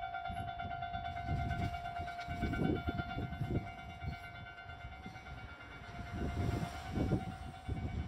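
Japanese railway level-crossing warning bell starting up and ringing steadily and rapidly, sped up fourfold, with gusts of wind buffeting the microphone underneath.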